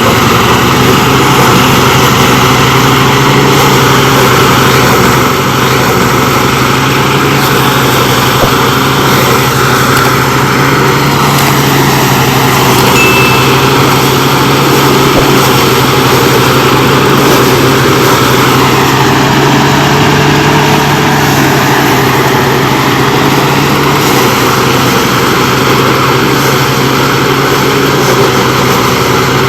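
An engine running loud and steady at constant speed, its level dropping slightly about five seconds in.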